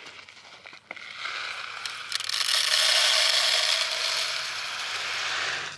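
Okra seeds pouring from a paper packet into the plastic seed hopper of an Earthway-type push planter: a steady stream of small seeds hitting plastic that starts about a second in, grows louder, and stops abruptly near the end.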